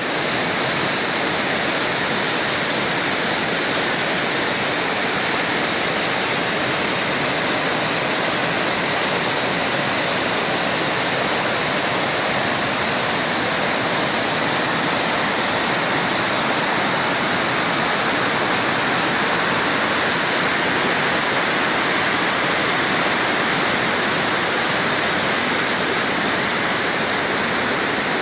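Waterfall: the steady, unbroken rush of water falling and splashing.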